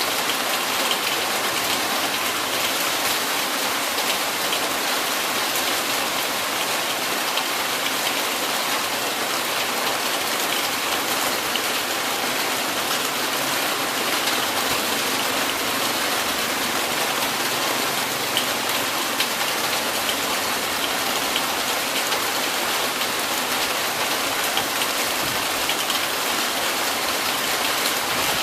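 Heavy rain pouring steadily, an even, unbroken hiss of drops.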